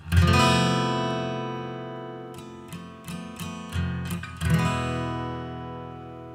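Background music of a strummed acoustic guitar: a chord struck and left ringing, a few quick short strokes in the middle, then another chord that rings out.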